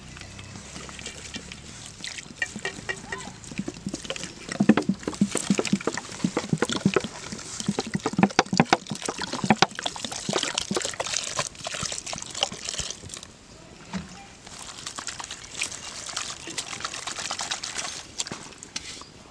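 Water sloshing and splashing in quick, irregular strokes, busiest from about four to ten seconds in.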